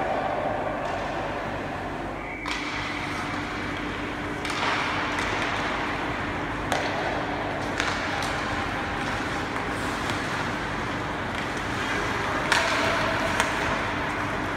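Ice hockey play in a rink: a steady hiss of skates on the ice with several sharp clacks of sticks and puck, the loudest about twelve and a half seconds in.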